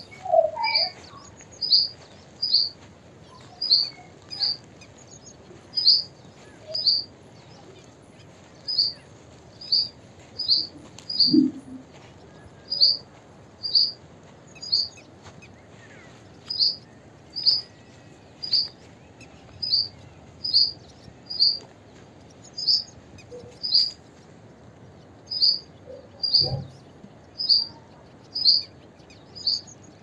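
Purple sunbird calling: a single sharp, high chirp repeated steadily, roughly every half second to a second, with a few short pauses.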